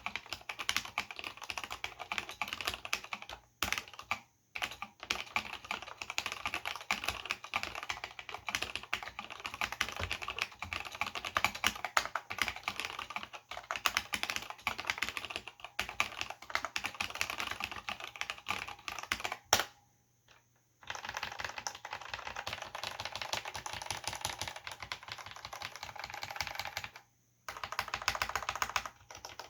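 Fast, continuous typing on a Cherry G80-0499 keyboard with Cherry MX Black linear switches and ABS doubleshot keycaps: a dense stream of key clicks and keystroke clacks. It stops three times for about a second, and one stroke right before the pause about two-thirds through is louder than the rest.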